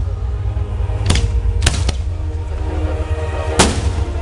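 Aerial fireworks shells bursting: a bang about a second in, two more close together shortly after, and a louder one with a trailing echo near the end, over a steady low rumble.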